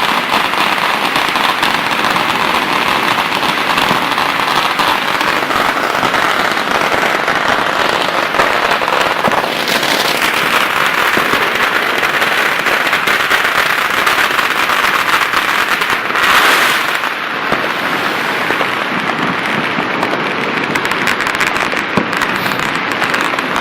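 Dense, continuous crackling of many firecrackers and fireworks going off all around, with a brief louder surge about two-thirds of the way through.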